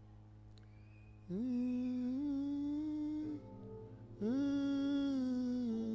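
A man's voice humming two long held notes, each about two seconds; the first starts a little over a second in with a short upward slide into the note, and the second follows after a brief pause.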